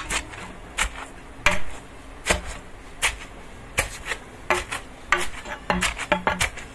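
Pestle pounding vatha narayanan leaves in a stone mortar, the leaves already crushed to a wet pulp ready for juicing. The strikes come roughly every three-quarters of a second, quicker near the end.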